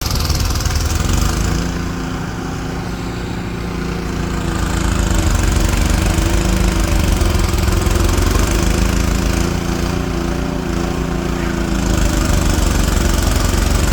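Ariens 28-inch two-stage snowblower engine running steadily under load in heavy, wet snow, its pitch wavering slightly and its level swelling and easing a few times.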